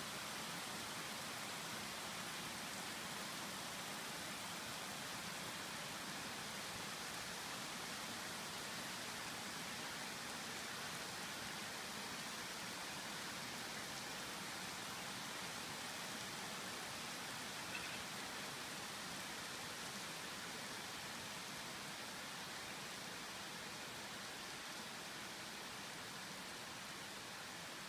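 Steady rain falling after a thunderstorm, an even patter that eases slightly toward the end, with one small click about eighteen seconds in.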